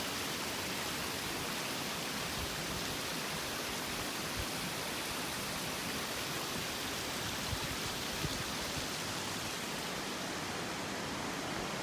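Small waterfall cascading: a steady, even rush of falling water.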